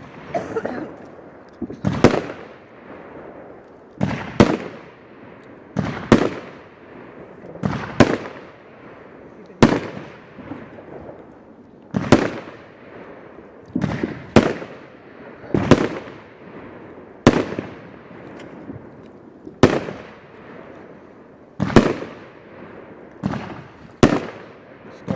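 A 25-shot 500 gram consumer firework cake (Firestorm by Big Fireworks) firing golden palm shells with colour stars at a steady pace: about a dozen sharp reports, one every two seconds or so and some in quick pairs, each trailing off in a fading hiss.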